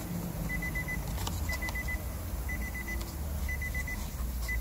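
An electronic beeper sounding in quick trains of about five short, high beeps, one train about every second, with a few light plastic clicks as the body control module is handled.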